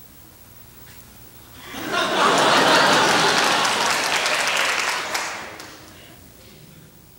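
Theatre audience applauding in one burst that swells quickly about two seconds in and dies away about four seconds later.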